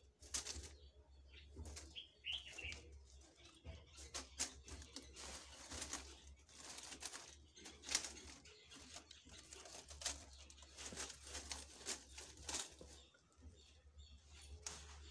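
Painted wire mesh being handled and laid over gravel chippings, giving faint, irregular rustles, scrapes and light clicks. A short high chirp sounds about two seconds in.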